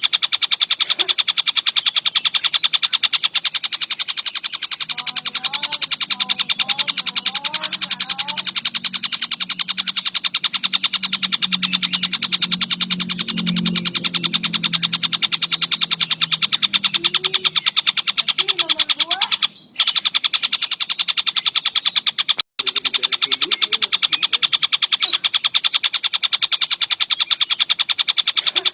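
Tengkek buto bird singing a fast, unbroken trill of rapid repeated notes, with faint lower chirps now and then. The sound cuts out briefly twice a little past the middle.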